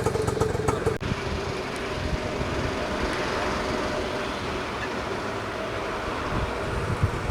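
A motor vehicle's engine running steadily, with a sudden break about a second in after which the sound becomes an even rumble.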